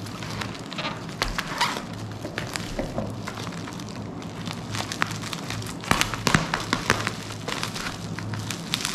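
Plastic bubble wrap crinkling and crackling as it is handled and cut open with scissors, with many short sharp clicks and snaps.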